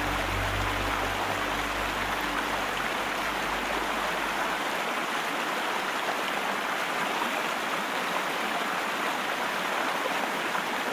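River water rushing steadily over rocks and small rapids.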